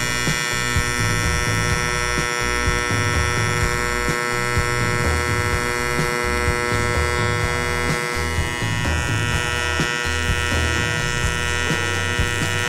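AC TIG welding arc on aluminium tubing, a steady hum with a fixed pitch that holds through the weld. Around the middle some of the higher tones slide down slightly.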